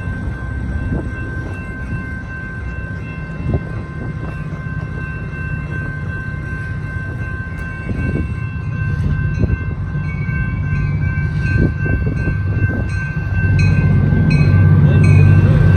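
Train running, with a low rumble and a steady high-pitched whine. The rumble grows louder about thirteen seconds in, with light clicking near the end.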